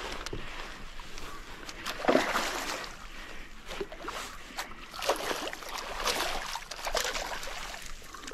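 Water splashing and sloshing around a small boat: one splash about two seconds in, then several more in the second half.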